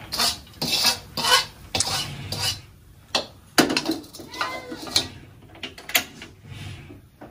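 Spatula scraping and knocking against a metal wok as the last of the stir-fried food is scraped out, a series of sharp, irregular scrapes and clanks.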